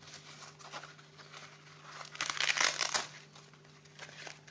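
Packaging rustling and crinkling as a wrist brace is pulled out of its box and handled, loudest a little past halfway through.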